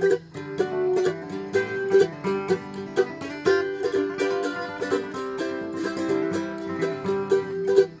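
Background music: a fast, picked tune on a plucked string instrument, many notes a second, in a bluegrass style.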